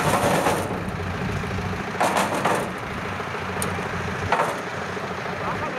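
A combine harvester's engine idling steadily, with a few sharp knocks and clanks of the metal ramp rails being shifted into place, about two seconds in and again a couple of seconds later.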